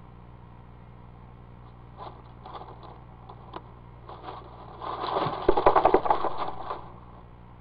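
Dry leaves crackling and scraping in a nest box as a screech owl scoots on the floor with her belly and feet, making a nest scrape. Scattered crackles start about two seconds in and build to the loudest rustling from about five to nearly seven seconds in.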